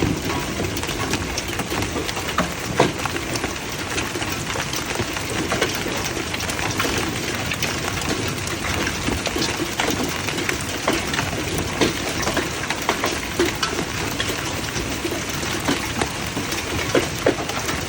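Hail and heavy rain coming down in a hailstorm: a steady dense hiss of rain dotted with many sharp, irregular clicks and knocks of hailstones striking hard surfaces.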